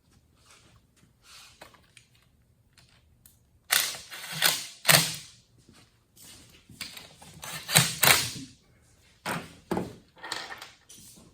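Metal clanking and clicking of hand tools and parts being handled on a manual transmission during reassembly: light ticks at first, then loud sharp knocks in two clusters around four and eight seconds in, and a few more near the end.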